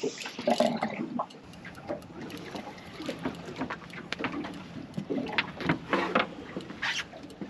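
Spinning reel's drag ticking irregularly as a hooked king mackerel pulls line against the bent rod.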